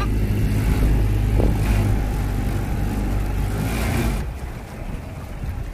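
Small outboard motor running steadily, pushing the boat along, then quieter from about four seconds in.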